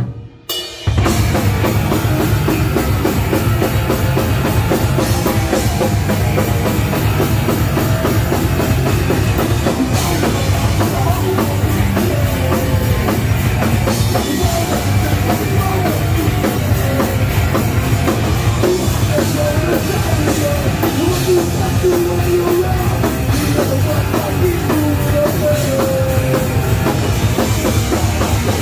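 Live rock band playing loud, with drum kit, electric guitar and bass guitar. The sound cuts out for under a second at the very start, then the band plays on steadily.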